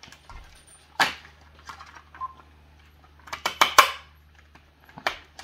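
Scissors snipping through the packaging ties that hold toy parts in a cardboard box, with sharp clicks and the rustle of plastic. One snip comes about a second in, a quick cluster of snips past the middle, and another near the end.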